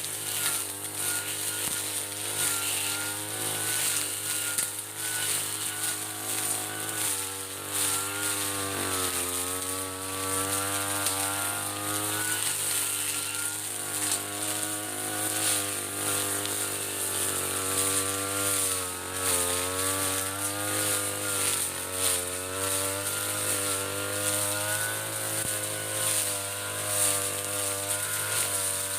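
Mitsubishi TU33 two-stroke brush cutter engine running at working speed while cutting fern undergrowth, its pitch rising and dipping again and again as the load changes.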